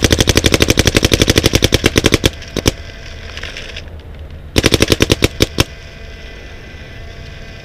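Dye DM12 paintball marker firing in rapid strings: a fast, even stream of shots, over ten a second, for the first two seconds or so, two single shots, then another short burst about four and a half seconds in.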